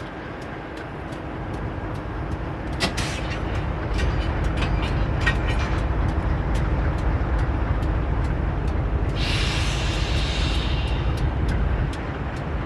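A train rumbling steadily, building up over the first few seconds. About nine seconds in there is a two-second hiss of air.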